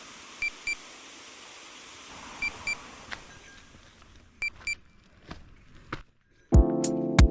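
A short electronic double beep, repeated three times about two seconds apart, over a steady hiss. Background music with a beat comes in near the end.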